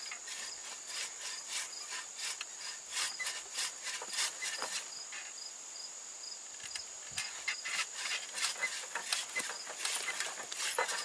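Insects chirping in a steady high-pitched drone, with scattered irregular clicks and rustles.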